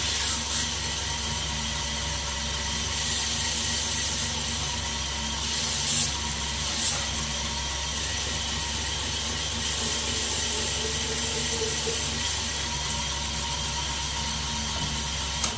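A 2x72 belt grinder running steadily with an abrasive sanding belt, a motor hum with hiss and a few brief louder scrapes, then switched off near the end.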